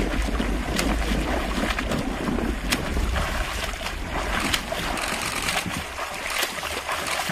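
Water splashing and lapping, with wind rumbling on the microphone through roughly the first half.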